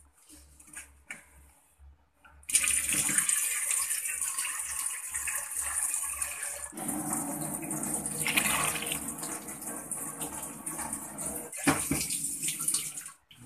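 Pot of biryani rice boiling hard in its measured water, a steady bubbling hiss that starts abruptly about two and a half seconds in and grows fuller about halfway through. The water is boiling down until the rice is ready for dum.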